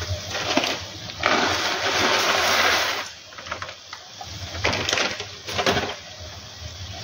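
Dry, crisp sev (fried gram-flour noodles) being poured into a kadai of cooked masala: a rustling, crunching pour lasting about two seconds. Then a few short strokes of a wooden spatula in the pan.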